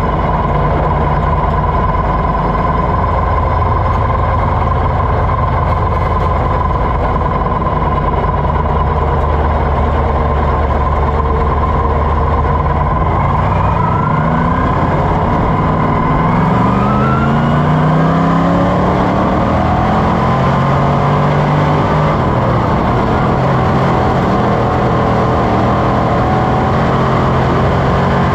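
Dirt-track sportsman modified's V8 race engine heard from inside the cockpit. It runs at a steady low pitch at first, then from about halfway through rises in pitch again and again as the car accelerates.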